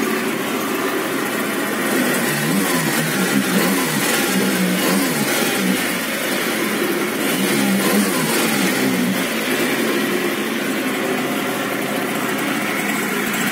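Yamaha scooter's small two-stroke 5BM engine running, revved up and back down a couple of times in the middle. The intermittent squeak and grinding from the transmission that the owner complains of is absent at this moment.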